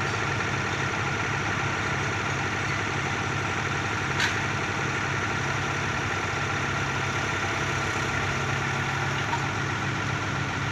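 Small diesel engine of a mini excavator running steadily while the machine works its arm, with one short sharp knock about four seconds in.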